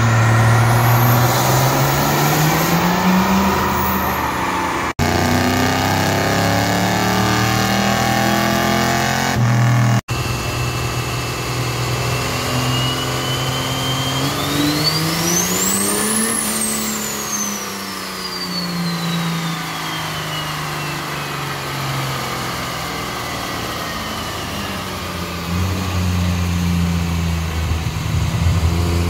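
Modified turbo-diesel Dodge pickups making pulls on a chassis dyno, the engine revs climbing in pitch under full load. The sound breaks off abruptly twice in the first ten seconds. About halfway through, a high whine climbs steeply to a shriek as the engine peaks, then falls slowly away as the revs drop, and the engine comes up again near the end.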